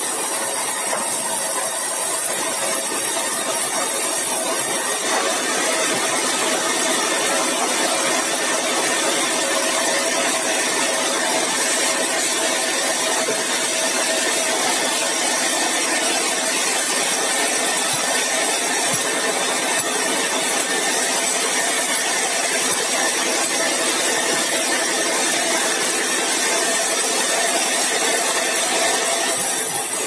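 Sawmill saw running steadily with a continuous hum; about five seconds in its blade bites into a squared keruing hardwood timber, ripping it into beams with a harsher, hissy edge until just before the end.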